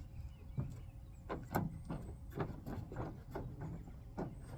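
Drop-in pickup bed liner being worked into the truck bed by hand: a series of separate knocks and bumps, about six over a few seconds, as the liner is pushed and flexed against the bed.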